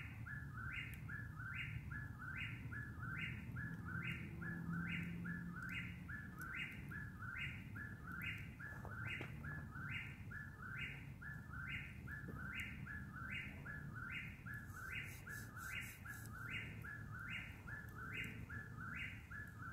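Whip-poor-will singing its three-note "whip-poor-will" phrase over and over without a break, each phrase ending in an upswept note, steady at about one and a half phrases a second.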